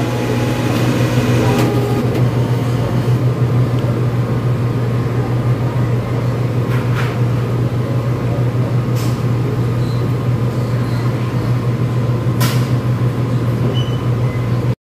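Steady low machine hum with a few faint clicks through it; it cuts off suddenly near the end.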